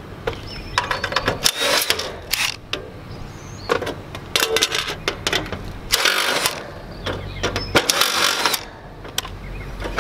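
Cordless driver backing screws out of the sheet-metal panel of an outdoor AC condenser unit in several short bursts, with light metal rattles and clinks in between.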